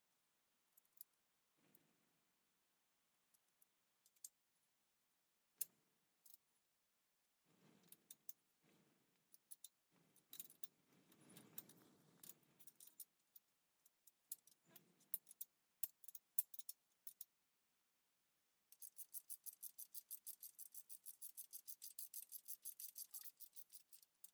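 Faint scattered clicks, taps and brief scrapes of small hand-tool work, then a fast, even run of clicks, about seven a second, for the last five seconds or so.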